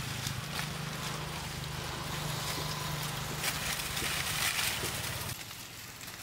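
A motor running steadily in the background, a low even hum under a hiss with scattered light clicks. The hum stops suddenly about five seconds in.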